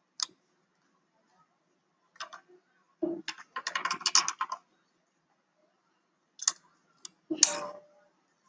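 Irregular sharp clicks and taps, like keys being typed. There are single clicks, a dense flurry of quick taps a few seconds in, and another short burst near the end.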